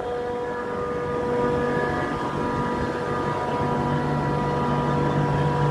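Steady mechanical drone of a Trane air-cooled chiller's running machinery, holding several steady tones; a low hum grows stronger about two thirds of the way through.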